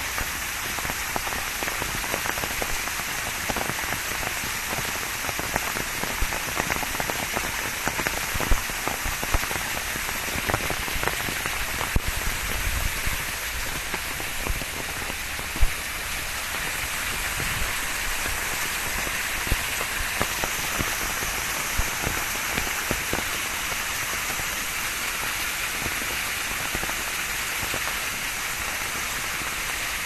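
Waterfall splashing down a rock face: a steady rush of falling water, full of small splashes and drips. A single sharp knock comes about fifteen and a half seconds in.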